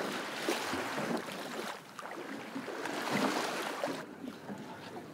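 Harbour water sloshing and lapping around a small floating catch tub, swelling twice, with wind on the microphone; about four seconds in it drops to a quieter, duller hiss.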